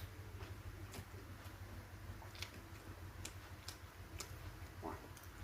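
Faint, scattered clicks and ticks of someone eating, about seven at uneven intervals, over a low steady room hum.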